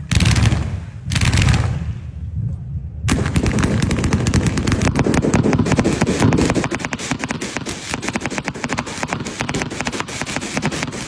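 A string of firecrackers going off in a rapid, unbroken chain of sharp bangs, starting suddenly about three seconds in. It is preceded by two shorter bursts of crackling about a second apart.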